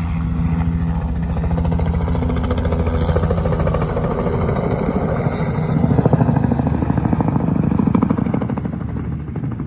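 Crop-spraying helicopter flying past: a fast, even rotor chop over a low engine drone, loudest a little after the middle and then fading as it moves away.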